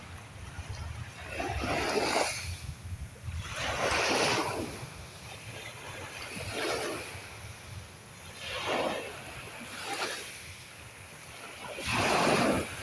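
Sea waves breaking and washing in, one swell of surf after another about every two seconds.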